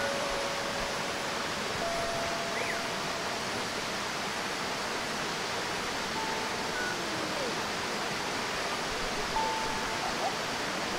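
Steady rush of water from a small stream cascade spilling over rocks into a pool.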